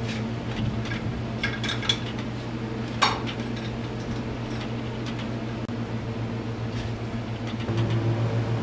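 Light metallic clinks of a timing chain and tools being worked onto the cam sprocket of a Polaris Sportsman 500 H.O. engine, a few scattered clicks in the first three seconds. Under them a steady low hum runs throughout and grows louder near the end.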